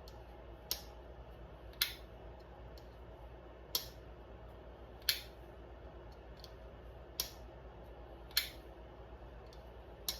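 Twosun TS593 folding knife being flipped open and shut on its freshly cleaned and greased bearing pivot: seven sharp metallic snaps, a second or two apart, as the blade swings out and locks and then closes.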